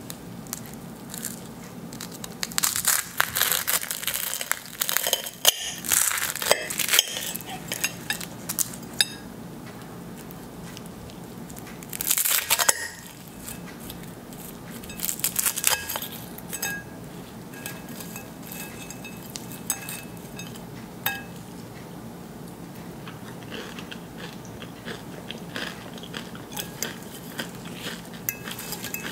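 Crisp, flaky puff-pastry layers of a mille-feuille crackling and shattering as a knife and fork cut down through them: a long stretch of crackling a few seconds in, then two shorter bursts, with scattered light ticks between.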